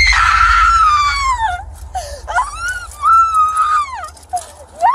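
A young woman screeching: a run of long, high-pitched screams, each sliding down in pitch as it trails off.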